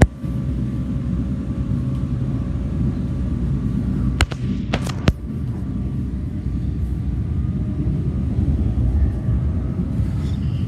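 Steady low rumble of a PATCO Speedline train running between stations, heard from inside, with three sharp clicks about four to five seconds in.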